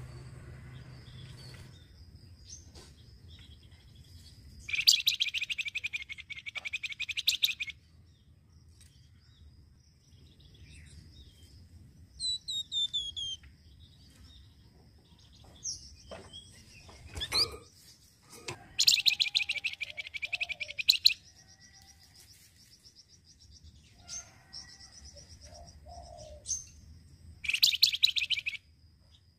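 Caged flamboyan songbird giving three bursts of fast, rattling chatter, each one to three seconds long, with a few short falling whistles and single call notes between them.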